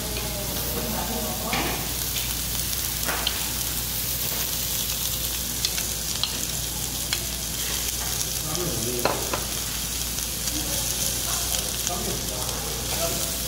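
Pork belly and bean sprouts sizzling on a nonstick griddle, a steady frying hiss. Scattered sharp clicks come from metal tongs knocking the pan and a bowl as stir-fried bracken is added.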